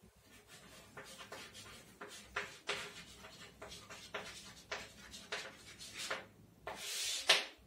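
Chalk writing on a chalkboard: a run of short, irregular scratchy strokes and taps, then a longer, louder stroke near the end that finishes in a sharp tap.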